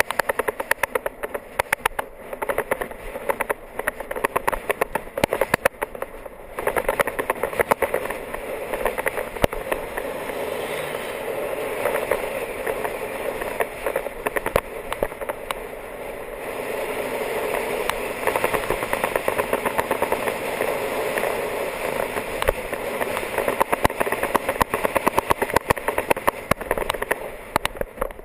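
Wind rushing over a bike-mounted camera on a fast road-bike descent, with frequent irregular clicks and rattles from the road surface. The rush grows louder after about seven seconds.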